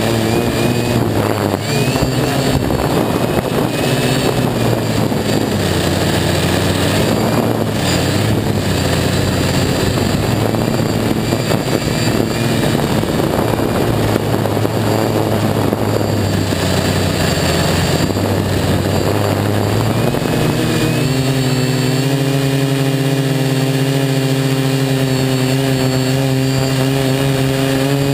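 DJI F450 quadcopter's four 2212/920kv brushless motors spinning 10-inch propellers, heard from the camera on the airframe. A loud buzzing hum whose pitch wanders up and down with the throttle, then settles to a steady pitch about three-quarters of the way through.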